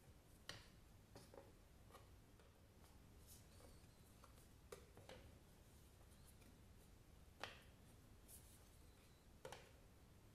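Near silence with a handful of faint taps and ticks from thick cardboard picture cards being handled, lifted and set against one another.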